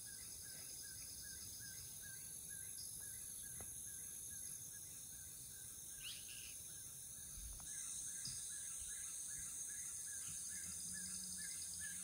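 Faint rainforest wetland ambience: a steady high insect drone with rapid, repeated short chirping calls that grow more frequent from about eight seconds in.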